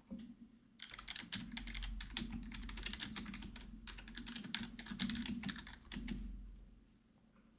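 Typing on a computer keyboard: a quick, dense run of key clicks that stops near the end.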